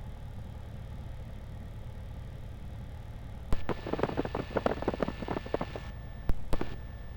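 Piper Arrow's engine running at taxi power, a steady low drone. From about three and a half to six seconds in there is a louder stretch of indistinct, voice-like sound.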